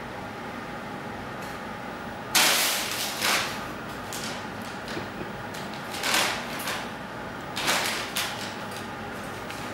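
Brown paper bag crinkling and rustling as a kitten pounces on it and paws at it, in five short bursts, the first and loudest about two and a half seconds in.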